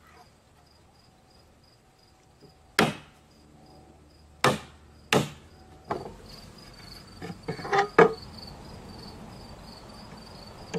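Hammer tapping nails to tack wooden slats in place: three sharp strikes in the first half, then lighter wooden knocks and a short clatter about eight seconds in as boards are handled. A faint high chirping of an insect repeats steadily throughout.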